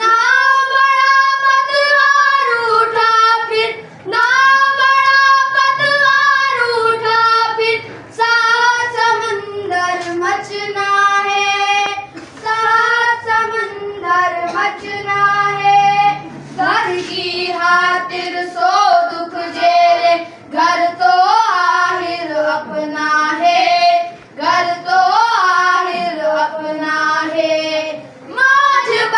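A group of boys singing an Urdu patriotic song together in high, unbroken voices, in phrases a few seconds long separated by short pauses for breath.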